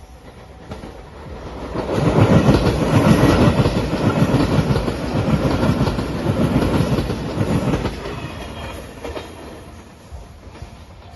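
Five-car JR Shikoku Shiokaze limited express train passing over a level crossing: wheels clattering over the rail joints and a heavy rumble. It swells about two seconds in, stays loud for about six seconds, then fades away.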